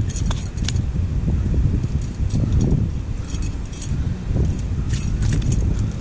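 Metal chain fish stringer and its snap clips jangling and clinking in several bursts as fish on it are handled, over a steady low rumble.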